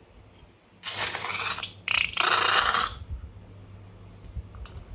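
Two bursts of crackly, hissing noise, each about a second long, from slime-making materials being handled.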